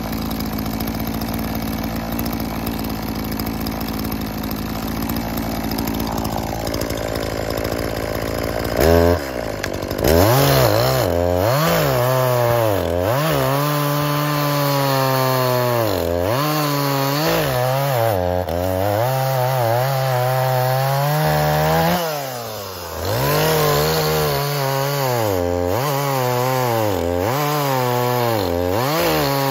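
Echo CS-4510 two-stroke chainsaw idling steadily, then revved up about nine seconds in and cutting through a log. Its pitch sags each time the chain bites into the wood under load and climbs back between pushes, with a brief let-off of the throttle about three-quarters of the way through.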